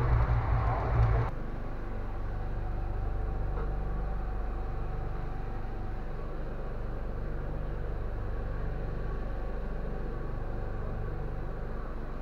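Steady rumble and low hum of a moving Indian Railways air-conditioned sleeper coach. It is louder for about the first second, then drops suddenly to a quieter, even drone.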